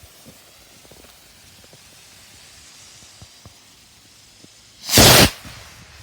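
A firework after lighting: a faint, steady hiss, then about five seconds in one loud, short burst as it goes off.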